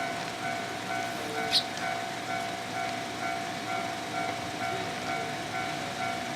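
Japanese level-crossing warning bell ringing over and over in an even, steady rhythm. A single short, high sparrow chirp cuts through about a second and a half in.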